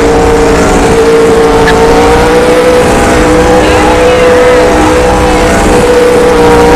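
An engine held at steady high revs, its pitch nearly constant, loud over a rough low rumble.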